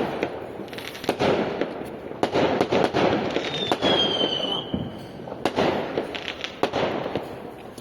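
Aerial fireworks exploding in rapid succession, sharp bangs mixed with crackling. A falling whistle is heard about halfway through.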